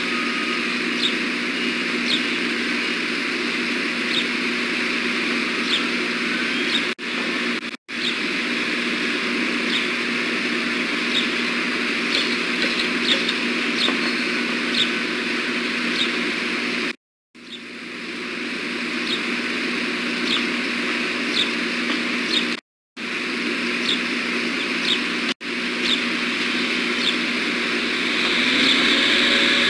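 Steady outdoor background noise with a low hum, with short high bird chirps scattered through it; the sound cuts out completely for a moment several times.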